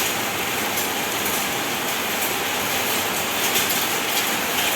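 Steady hiss of heavy rain, with a few sharp taps of small hailstones striking a roof.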